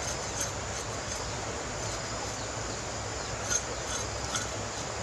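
Steady rushing outdoor noise, with a few faint short taps as a machete works along a snake's body on a banana leaf.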